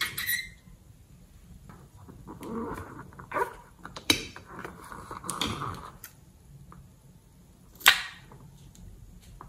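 Rubber balloons squeaking and rubbing as hands handle them, with a few sharp clicks. Just before the end there is a sharp snip as scissors cut into the balloon's tip.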